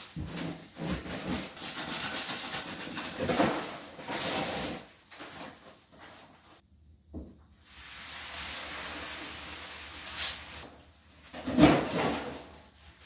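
Dry concrete mix pouring out of a paper sack into a plastic mixing tub, a loud rushing hiss for the first several seconds. Near the end come scraping and a few sharp knocks as the mix is worked in the tub.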